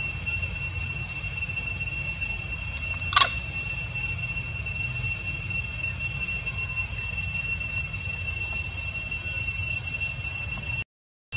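Steady high-pitched drone of two even tones, typical of insects such as cicadas, over a low rumble. A brief sharp sound comes about three seconds in, and the sound cuts out for a moment near the end.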